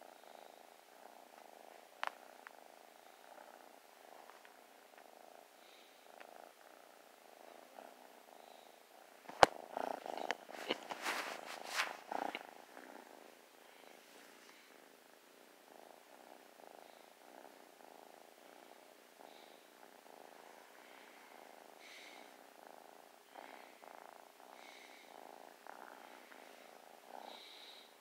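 Tabby kitten purring steadily, close to the microphone. About nine seconds in, a burst of loud knocks and scuffs lasts a few seconds, then the purring carries on.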